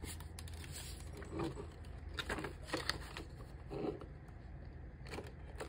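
Paper banknotes counted and handled, with the crinkle of a clear plastic binder envelope as the bills are slipped in: soft, intermittent rustles and taps.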